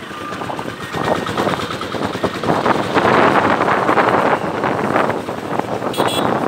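Wind rushing over the microphone of a moving motorcycle, with its engine running underneath, as it rides past a line of stopped trucks and buses. A short horn toot sounds near the end.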